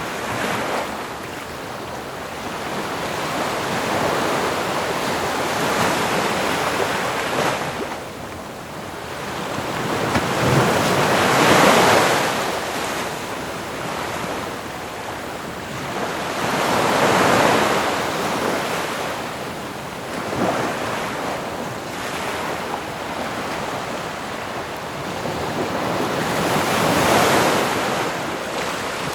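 Ocean waves breaking and washing ashore, a steady rushing hiss that swells with each wave every five or six seconds and ebbs between.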